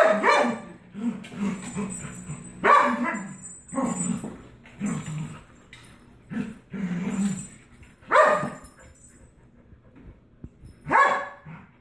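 Dogs barking in short bursts while squabbling over a rawhide chew: a run of barks, then a pause and one more near the end.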